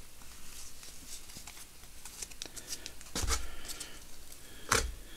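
Trading cards being handled and sorted on a table: faint rustling and small clicks, with two soft knocks about three and four and a half seconds in.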